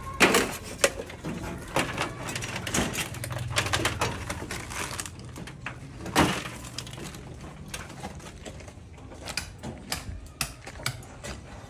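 Irregular clatter and scraping of scrap being pulled from a demolition pile: corrugated metal roofing, metal rods and wooden poles knocking together. Sharp knocks come near the start and again about six seconds in.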